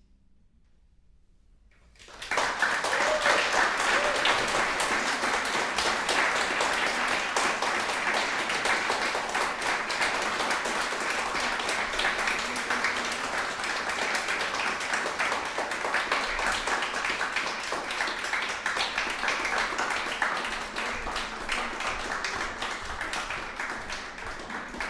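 Audience applauding: a brief hush, then clapping breaks out suddenly about two seconds in and keeps up, easing slightly near the end.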